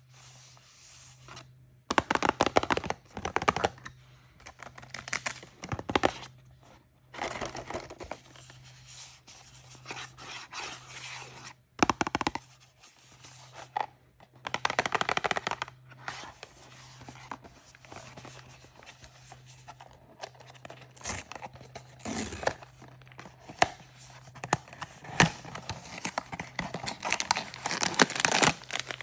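Toy surprise packaging being torn open and crinkled by hand, in irregular bursts of tearing and crumpling with short pauses between, thickest near the end. A faint steady low hum runs underneath.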